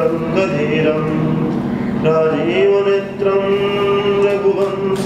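A man's voice singing a Hindu devotional chant in long held notes, gliding from one pitch to the next.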